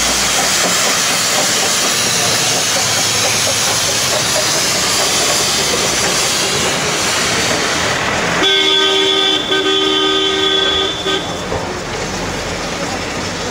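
Darjeeling Himalayan Railway B-class steam tank locomotive hissing steam as it works along the track. About eight seconds in, a long steady toot sounds for about two and a half seconds, with a short break partway through.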